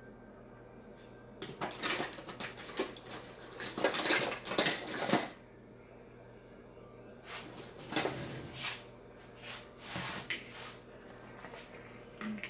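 Kitchen dishes and utensils clinking and knocking as they are handled, in a busy stretch of a few seconds followed by shorter bursts.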